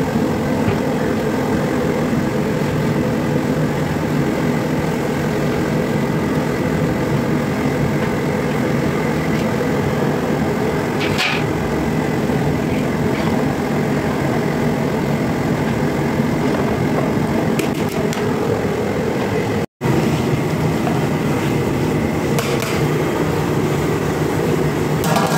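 A steady, loud low rumble that does not change, with one brief clink about eleven seconds in. It breaks off for an instant about twenty seconds in.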